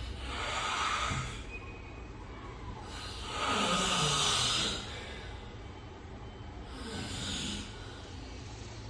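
A man snoring: three noisy snoring breaths about three seconds apart, the middle one the longest and loudest.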